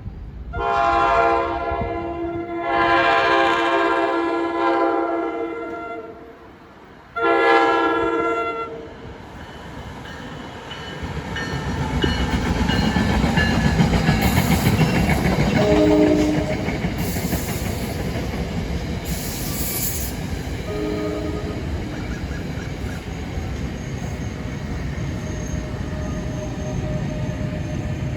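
A train horn sounds three chord blasts, two long ones and then a shorter third. A few seconds later the train passes at speed with a steady rumble and wheel clatter on the rails.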